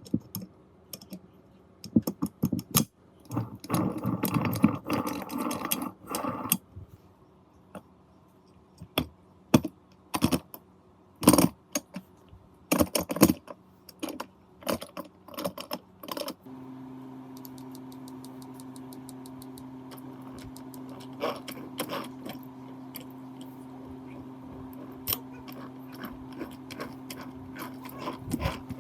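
Metal gearbox parts and tools clinking, knocking and scraping in handling, with a denser rattling stretch a few seconds in. About halfway through, a steady machine hum starts and runs on beneath the clicks.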